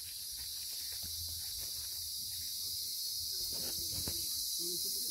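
A steady high-pitched hiss under a low rumble, with faint voices about three and a half seconds in and again near the end.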